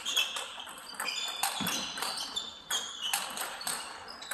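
Table tennis balls clicking off bats and tables: a rapid, irregular series of sharp light knocks, with short high squeaks among them.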